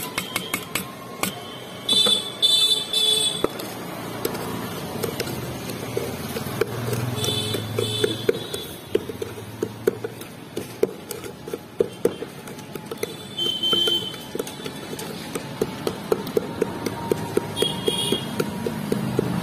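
A wooden pestle pounds and mashes wood apple pulp with masala in a steel pail: a steady run of knocks, about three a second. Short high horn beeps sound several times; the loudest come about two seconds in.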